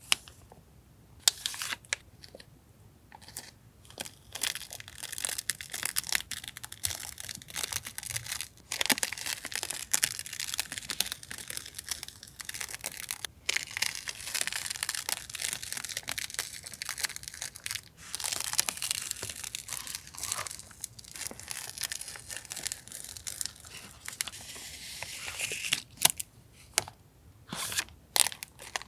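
Paper and plastic stationery packaging rustling and crinkling as it is unwrapped and handled, with scattered sharp taps and clicks.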